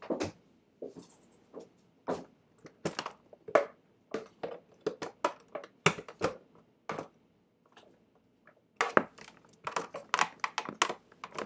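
Irregular clicks, taps and light clatter of hands handling cables and plastic connectors on a desk, with a busier run of clicks near the end.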